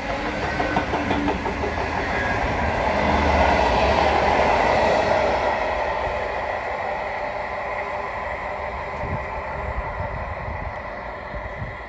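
Indian Pacific passenger train's stainless-steel carriages rolling past, wheels clicking over the rail joints, the rumble swelling and then fading as the train draws away.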